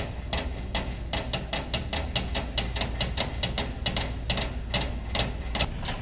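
Rapid, uneven sharp knocks, about five a second, like repeated hammer strikes, over a low steady rumble.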